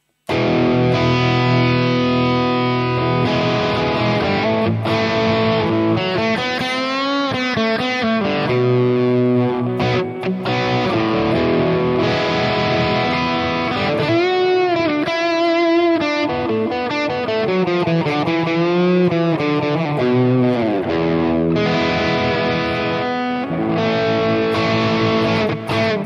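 Electric guitar played through a Hotone Ampero 2 Stage modeling unit with a light crunch tone: ringing chords and single-note lines, with wide string bends and vibrato about halfway through.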